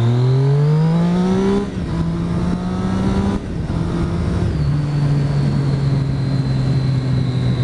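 Triumph motorcycle engine with an Arrow exhaust can pulling up through the revs, then dropping in steps as it changes up, and settling to a steady cruise about halfway in. Wind rushes steadily over the rider throughout.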